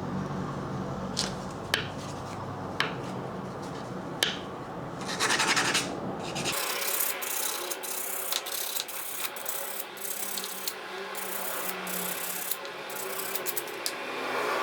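Hand scraping and rubbing on metal, with scattered sharp clicks and knocks. A low hum under it cuts off suddenly a little before halfway.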